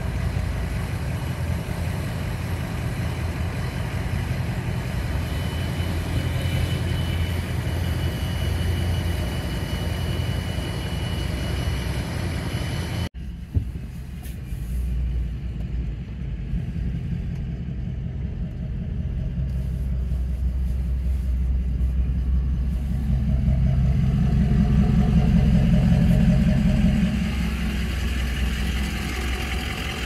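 Pickup truck engine running steadily. After an abrupt cut it is heard from inside the cab while driving, and the engine note swells louder for a few seconds before easing off near the end.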